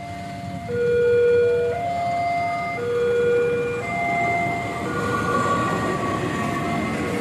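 Railway level-crossing warning signal sounding two alternating tones, each held about a second, over the rumble of a passenger train passing over the crossing.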